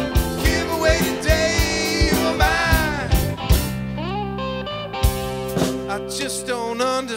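Live rock band with electric guitars, bass and drums playing an instrumental passage between vocal lines, a melodic lead line with wavering, bending pitch riding over the chords. The drums thin out about halfway through.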